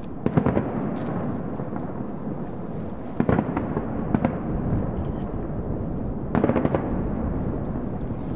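Fireworks shells bursting: four clusters of sharp cracks and bangs a few seconds apart, over a continuous low rumble.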